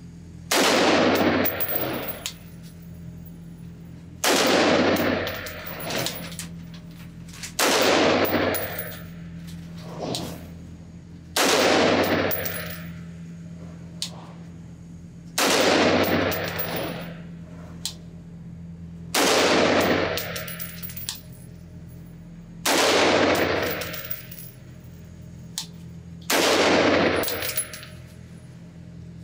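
Eight slow, evenly paced shots, about one every three and a half to four seconds, from a Sig Sauer MCX-Spear LT pistol in 5.56 with an 11.5-inch barrel. Each shot is a sharp crack with a long echoing tail from the enclosed indoor range.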